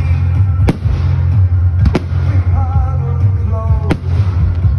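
Aerial fireworks shells bursting with three sharp bangs about a second or two apart, over loud music with a heavy bass.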